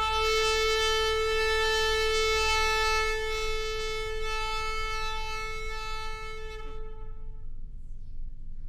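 A shofar blown in one long, steady note, loudest for the first three seconds, then softer until it stops about seven and a half seconds in.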